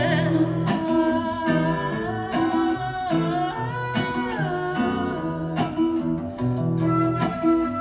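Live band music between sung lines: plucked guitar and held low notes under a sustained melody line that slides slowly between pitches.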